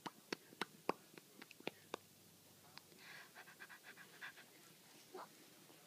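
A four-month-old baby's faint wet mouth noises: a quick string of small clicks and lip smacks, then soft breathy puffs.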